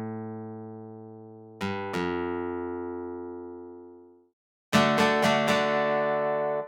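An AAS software synthesizer preset being played: a low note fades out, two chords struck about a second and a half and two seconds in ring out and die away, then after a short gap chords are played again in quick repeated strikes, about four a second.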